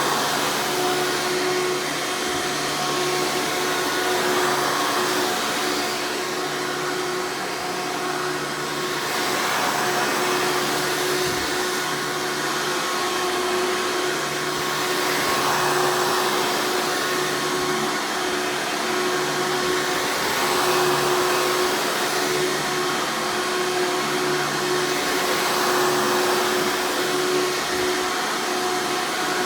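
Hoover Encore Supreme U5059-930 upright vacuum running, a steady motor whine over rushing air, its sound swelling and easing slightly every five seconds or so.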